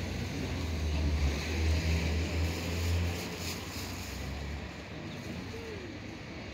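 Low engine rumble of an unseen motor vehicle, louder about one to three seconds in and cutting out after about four and a half seconds, over a steady outdoor hiss.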